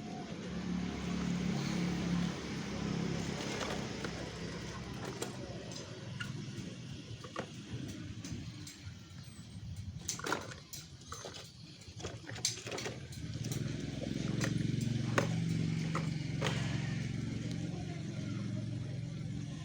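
Mini excavator engine running steadily, growing louder in the last few seconds, with a series of sharp knocks in the middle.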